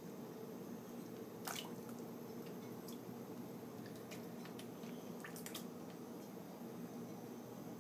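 Small splashes and drips of water from a kitten pawing in a shallow plastic tub, the loudest about a second and a half in and a quick few together around five seconds, over a steady low hum.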